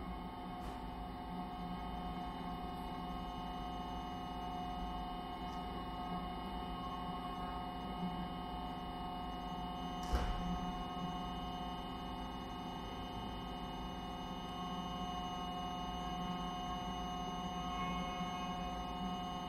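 Experimental electronic music: a steady drone of many held tones layered on top of one another, unchanging in pitch. A single sharp click cuts through about ten seconds in.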